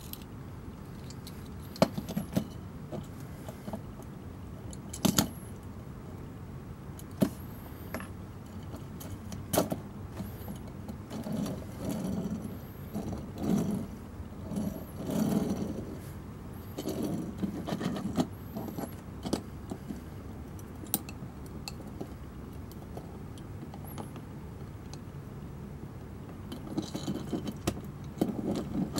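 Handling noise from a die-cast toy fire truck and its plastic ladder: scattered sharp clicks and clacks, with stretches of softer rubbing and rumbling in the middle and a cluster of clicks near the end.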